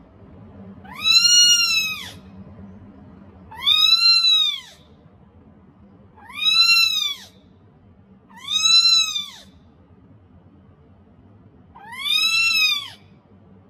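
A young orange kitten, only a few weeks old, meowing five times. Each meow is high-pitched, about a second long and rises then falls in pitch, with short pauses between.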